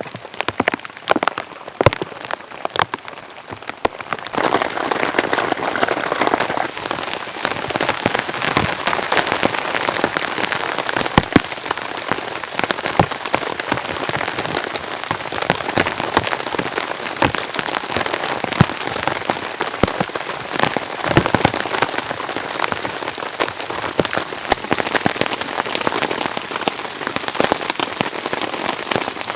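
Heavy rain falling, with many sharp individual drops striking a surface; the rain grows denser and louder about four seconds in.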